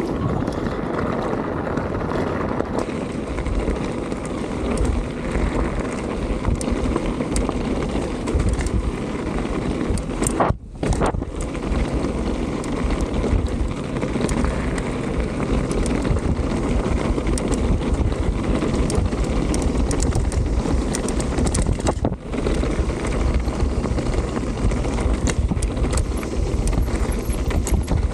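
Wind rushing over the microphone and a Canyon mountain bike's tyres crunching over loose gravel and dirt at speed, with constant small rattles and clicks from the bike. The sound briefly drops out twice.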